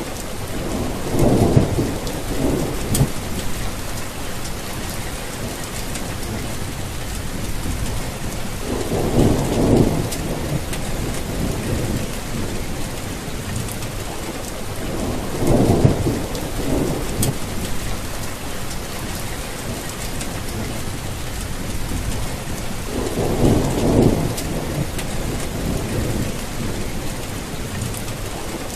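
Heavy rain, a steady hiss of falling drops, with four low rolls of thunder swelling and fading about every seven or eight seconds.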